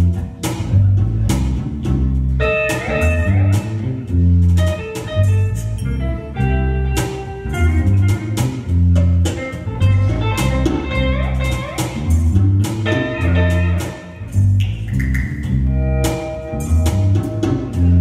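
Live jazz band playing an instrumental passage: electric guitar and bass guitar over a drum kit, with no singing. A higher melody line comes in about two and a half seconds in over the steady bass line and drum beat.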